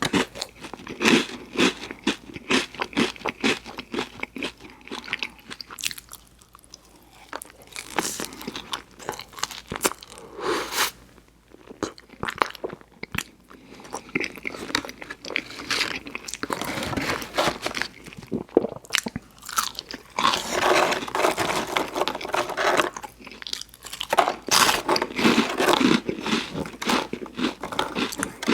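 A person biting and chewing a burger and fries close to the microphone: a dense run of irregular wet smacks and crunchy clicks, easing off briefly twice.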